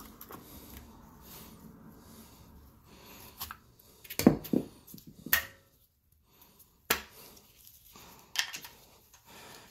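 Gloved hands working a PTFE rear main seal and its white plastic installation sleeve onto a crankshaft: quiet rubbing and handling with a handful of short, sharp plastic clicks and taps, the loudest about four to five seconds in as the sleeve comes away.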